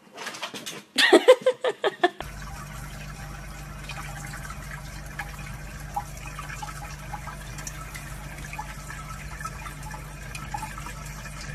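Water running steadily from a tap, beginning about two seconds in. Just before it, a quick run of about six loud short sounds with a wavering pitch.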